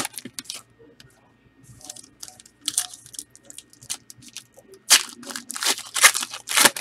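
Trading card pack wrappers being torn open and crinkled by hand, in several short rips with rustling between them, the loudest near the end.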